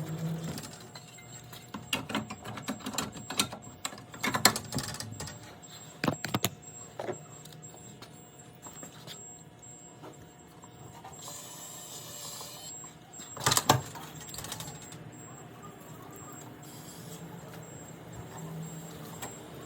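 Lock hardware and tools clicking and knocking at irregular intervals, the loudest knock about thirteen and a half seconds in, with a brief hiss a little before it.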